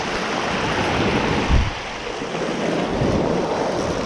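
Surf breaking and washing over shoreline rocks, a steady rushing hiss, with wind buffeting the microphone and a low thump about a second and a half in.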